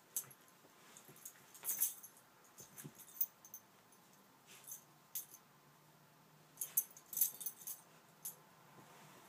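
Schnoodle burrowing in blankets and a dog bed: scattered metallic jingles, likely from his collar tags, and fabric rustling, in short bursts, busiest about two seconds in and again around seven seconds in.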